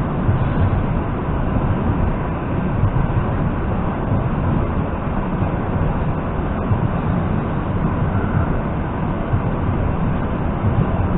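Steady running noise of an ЭП2Д electric multiple-unit train, heard from inside a passenger car.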